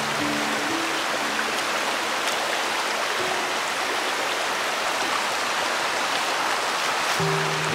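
Shallow rocky stream running: a steady rush of water over stones. A few soft background music notes sound near the start and again near the end.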